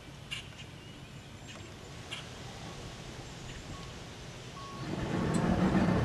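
Motorboat engine running quietly, then throttled up about five seconds in and holding a louder steady note as the boat moves off across the water.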